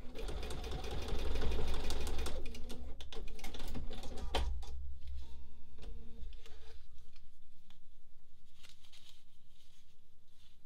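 Bernina sewing machine stitching fast through paper and fabric, then stopping about four or five seconds in. A short mechanical whir from the machine follows, and the sound trails off quieter after that.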